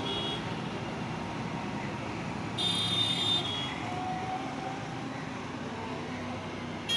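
Road traffic running steadily, with a short vehicle horn toot about two and a half seconds in and another starting right at the end.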